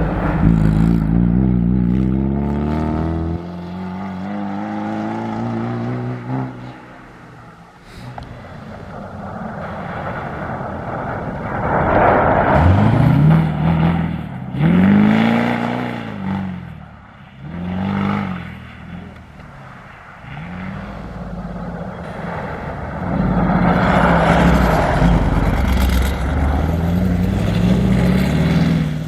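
Rally-raid competition cars' engines running hard as they pass: the pitch falls as one car moves away, then the revs rise and drop three or four times in a row, and near the end another engine runs loud and steady.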